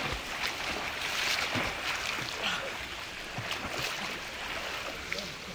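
Steady hiss of rushing water.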